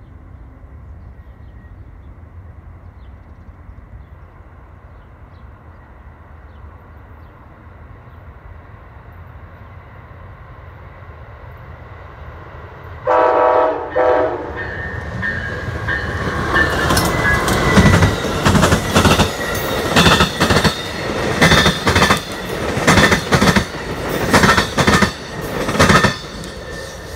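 An Amtrak ALC-42 Charger diesel locomotive rumbles as it approaches and sounds one short horn blast about halfway through. The wheels of the locomotive and its passenger cars then bang repeatedly over a rail diamond crossing as the train goes by.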